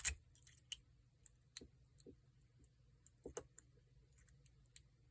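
Faint, irregular clicks of a hybrid pick working the pin stacks of a Paclock 90A-PRO seven-pin padlock with security pins, held under tension by a Z-bar tensioner.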